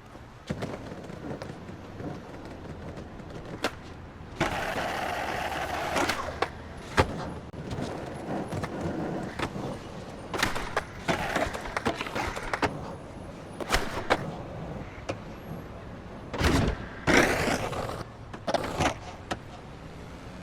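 Skateboard wheels rolling on hard ground with sharp clacks and knocks of the board, and a longer steady scraping stretch about four to six seconds in, typical of a grind along an edge or rail.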